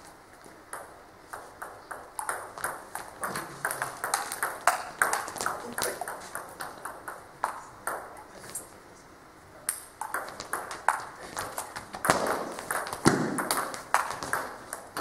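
Table tennis ball clicking off rackets and the table in quick rallies, with a sparser stretch between points in the middle.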